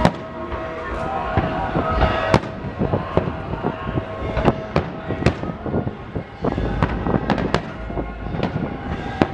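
Aerial fireworks shells bursting: an irregular run of sharp bangs and crackles, several a second at times, with the loudest bangs about two seconds in and again around the middle.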